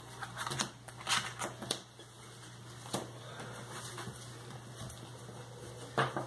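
Sleeved Magic: The Gathering cards being drawn and laid down on the playmat: a few light clicks and slaps of the cards, several in the first two seconds, one about three seconds in and another near the end.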